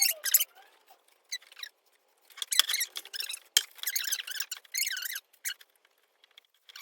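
Squeaky rustling and scraping of parts being handled during assembly, in short scattered bursts, with two sharp clicks about two and a half and three and a half seconds in.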